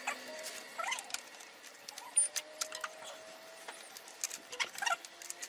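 Motorcycle drive chain being fed by hand around the sprockets of a Lexmoto ZSX 125: scattered light metallic clicks and clinks of the links, with a few short squeaks.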